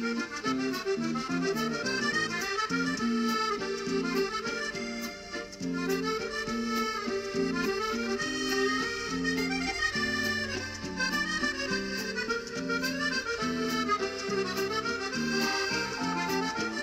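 Background music: sustained chords under a moving melody, with a light steady beat.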